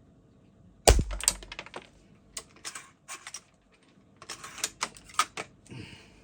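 Handling of a spring-powered bolt-action airsoft sniper rifle: one sharp clack with a low thump about a second in, then a string of lighter mechanical clicks and rattles.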